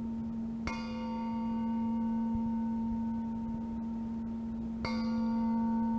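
Noise music played back from a cassette: a steady low drone over tape hiss, with two struck metallic tones that ring out like a bell, about four seconds apart.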